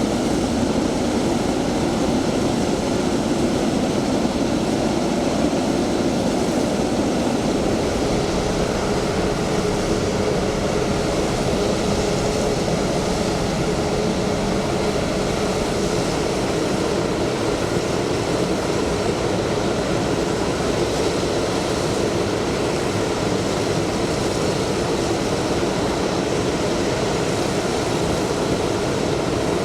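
Jet aircraft engines running steadily: a continuous, even rush with a faint steady hum.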